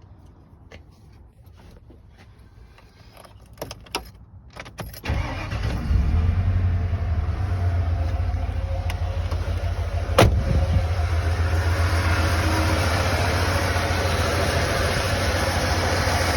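A few clicks, then a fuel-injected vehicle engine starts about five seconds in and runs steadily at idle. It has a misfire that makes it shake, which the owner suspects comes from an injector not firing. One sharp click about ten seconds in.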